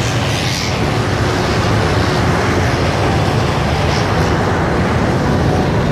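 Air tanker's engines running on the airfield runway: a steady, loud engine noise with no breaks.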